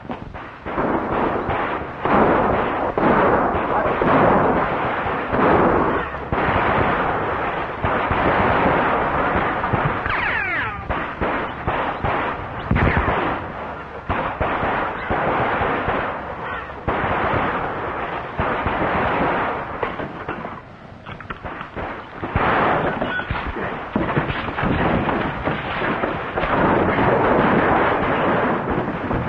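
Pistol shots fired again and again in a gunfight, each with room echo. Near the end comes the sound of a scuffle, with thuds.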